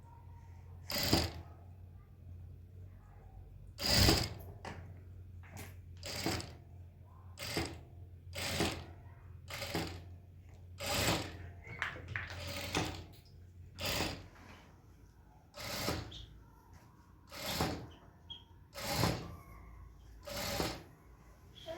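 Sewing machine stitching in short bursts, one every second or two, over a low steady hum.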